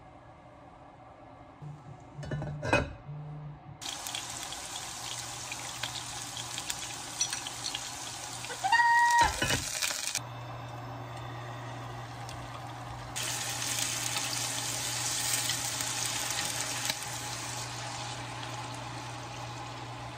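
Rice and mushrooms hissing as they cook in an enamelled cast-iron pot on an induction cooktop, with light handling clicks near the start. A short, loud electronic beep comes about nine seconds in. After that a steady low hum runs under the hiss.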